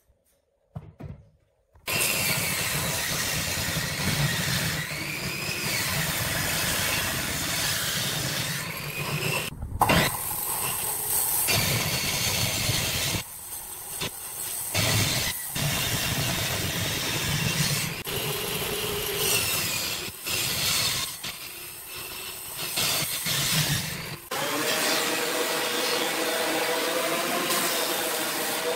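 Woodworking machinery running: a table saw running and cutting boards, its pitch wavering under load, with a sharp knock about ten seconds in and several short drops in level. About three-quarters of the way through, the sound changes to the steadier, humming run of a thickness planer's motor.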